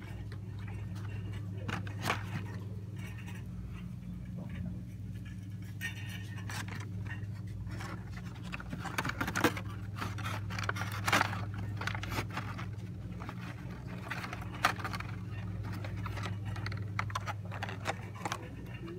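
Hot Wheels blister-pack cards being handled and shuffled on a store shelf: scattered scrapes, clicks and plastic rustles over a steady low hum.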